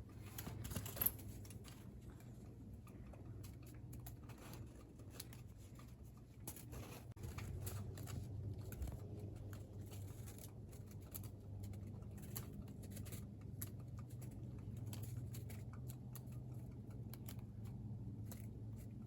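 Faint scattered light clicks and taps over a low steady hum.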